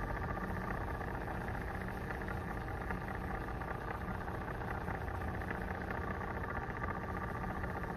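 Steady hum of a small electric turner motor slowly rotating an epoxy-coated glass piece.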